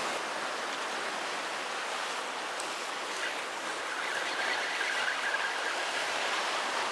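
Sea surf washing steadily against a rocky shore. About halfway through, a faint steady whir joins it, from a spinning reel being wound in.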